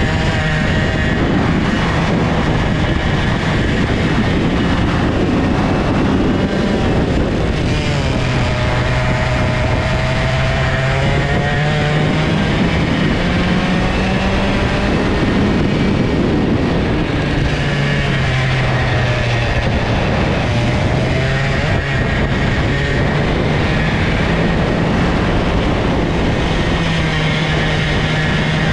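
Single-cylinder two-stroke IAME kart engine heard onboard under racing load. Its revs drop twice, about 8 and 17 seconds in, as the kart slows for corners, and climb again each time it accelerates out.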